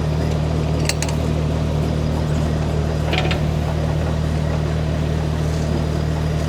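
Mini excavator's Kubota D1105 three-cylinder diesel engine running steadily under operation, with a couple of short sharp metallic clinks about a second in and again about three seconds in.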